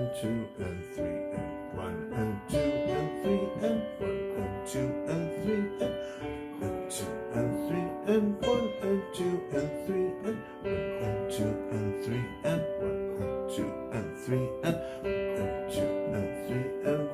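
Piano sound from a digital keyboard playing a gentle piece in three-time, a melody over a flowing left-hand accompaniment, notes sustained and overlapping.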